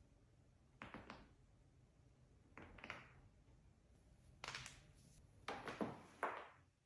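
Joints cracking during chiropractic adjustments: about five short bursts of pops, each a quick cluster of clicks, the loudest near the end.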